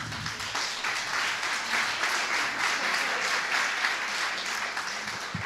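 Audience applauding: a dense patter of many hands clapping that tails off near the end.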